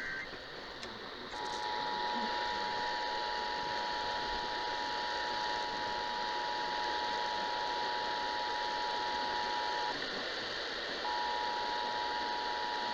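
Emergency Alert System attention signal off a broadcast radio: the two-tone alert tone, two steady pitches sounding together. It starts a little over a second in, breaks off after about eight seconds and comes back about a second later, over steady radio hiss.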